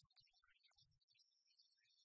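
Near silence, with faint scattered ticks and a few soft low bumps.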